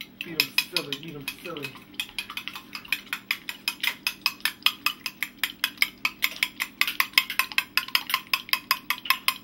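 Metal fork beating eggs in a glass bowl, clinking against the glass in a rapid, even rhythm.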